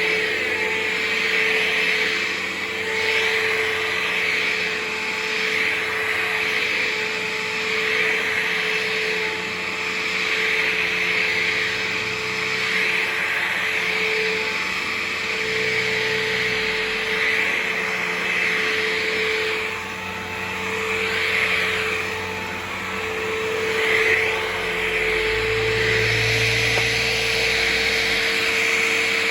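Dirt Devil Vision Swivel Glide upright vacuum cleaner running steadily, a motor hum over a strong airflow hiss, as it is pushed back and forth over a low-pile rug. The sound swells and dips with each stroke.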